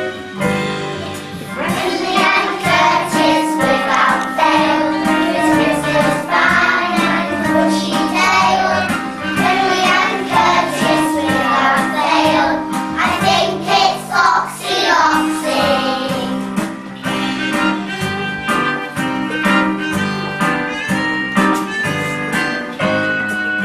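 A children's song: children singing over an instrumental backing track with a steady beat. The singing stops about two-thirds of the way through while the music carries on.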